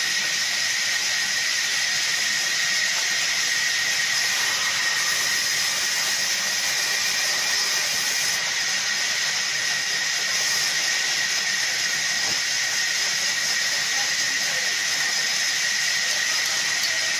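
Sawmill band saw running and cutting through a log: a loud, steady hiss with a high whine held throughout.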